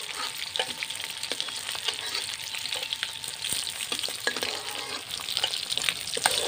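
Fried fish pieces sizzling and crackling in hot oil in a steel wok (kadai), with occasional sharp clicks as a long metal spatula lifts them out of the pan.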